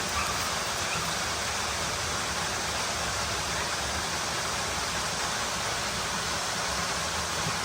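Waterfall rushing steadily: the continuous rush of Kilgore Falls.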